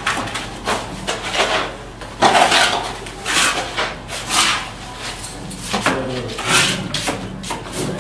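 Trowels scraping wet cement mortar out of metal basins and dashing it onto a brick wall during rendering: a string of short scrapes and splats, one every second or so at uneven spacing.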